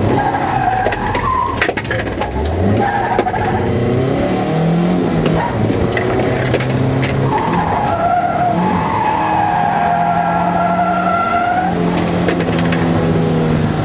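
Nissan 240SX's stock four-cylinder KA24 engine running hard under load, heard from inside the cabin, with the revs climbing a couple of seconds in. The tyres squeal in long wavering squeals, briefly near the start and at length from about halfway through for some four seconds, as the car slides.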